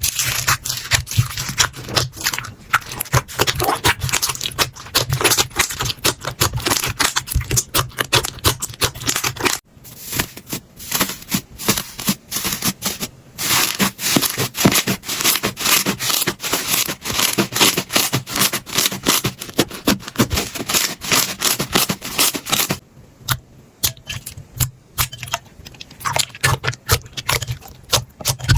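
Slime being squished and worked, making a dense run of crackling clicks, pops and scraping sounds. The texture changes abruptly about 10 s in and again around 23 s, where it briefly goes quieter.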